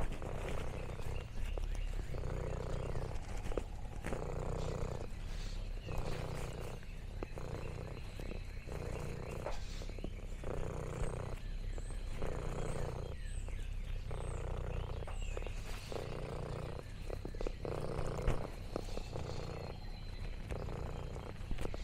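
Domestic cat purring close up, in a steady in-and-out rhythm that swells and fades about every second and a half. Faint high bird chirps come in about halfway through.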